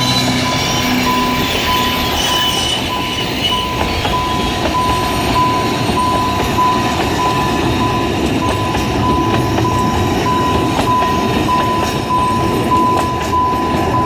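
An Alishan Forest Railway diesel locomotive and its coaches roll past a level crossing: an engine hum at first, then a steady rumble of the coaches with wheel clicks in the later seconds. Over it the crossing's electronic alarm beeps one high tone about twice a second, a new alarm sound in place of the Taiwan Railway crossing sound.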